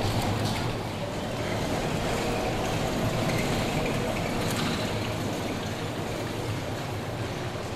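Articulated trolleybus passing close by on cobblestones: a steady hiss and rumble of tyres over a low hum, easing slightly toward the end.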